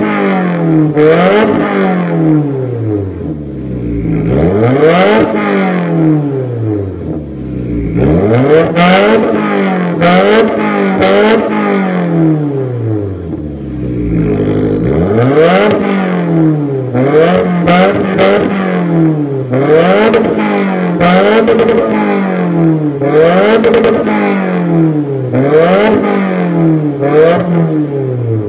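Subaru WRX's turbocharged flat-four revved repeatedly through an aftermarket quad-tip exhaust. A few long climbs and drops come first, then quick regular blips about every second and a half.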